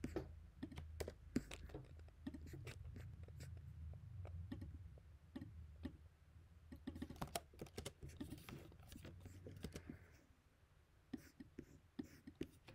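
Faint, scattered keystrokes and clicks on a computer keyboard, coming in small flurries, over a low room hum.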